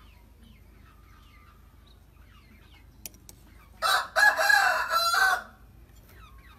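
A rooster crowing once, about four seconds in, a call lasting about a second and a half. Faint small-bird chirps are in the background.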